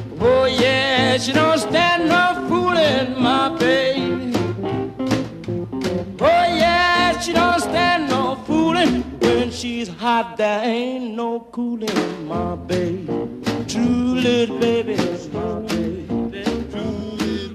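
Electric blues recording with a harmonica playing the lead, its notes bending and wavering, over guitar, bass and a steady drum beat. The lead drops out briefly about ten seconds in, then comes back.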